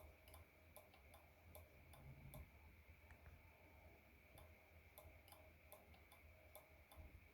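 Faint, even ticking at about two and a half ticks a second, over a faint steady high-pitched whine.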